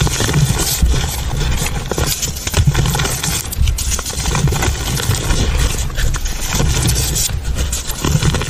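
Hands pressing and crushing a pile of crumbly powder with small lumps in it: dense crunching and crackling, with repeated dull thumps as the hand comes down on the pile.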